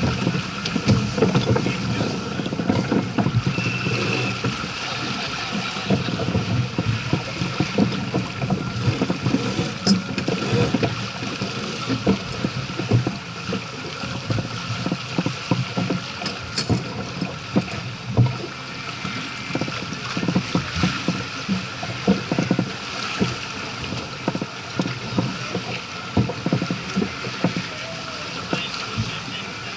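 Water rushing and splashing along the hull of a sailing yacht under way, with gusty wind noise, continuous and unsteady throughout.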